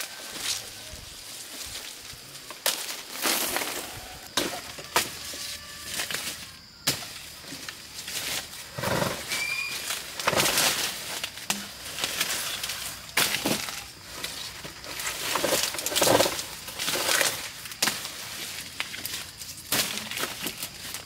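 A machete chopping purple sugar cane stalks in irregular blows a second or two apart, mixed with crackling and rustling of dry cane leaves.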